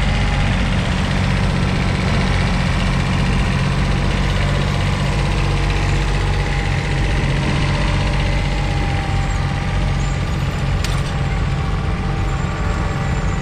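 Kubota B7100D's 0.8-litre three-cylinder diesel engine running steadily while the compact tractor pulls a single-furrow trailed plough through the soil.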